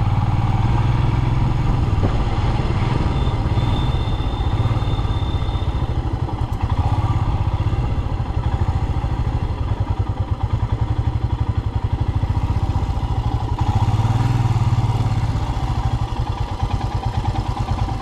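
Motorcycle engine running at low speed under the rider, with a steady low thumping beat. It picks up briefly about fourteen seconds in, then settles back to a slower, more pulsing run near the end.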